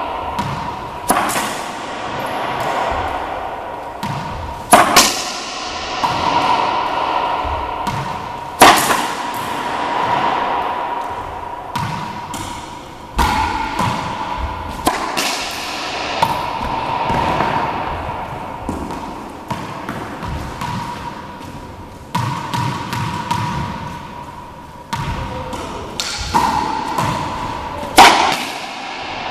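Racquetball being hit with a racquet in repeated backhand drives, each strike followed by the ball smacking the front wall and bouncing on the hardwood floor, with every hit echoing around the enclosed court. A steady hum runs underneath.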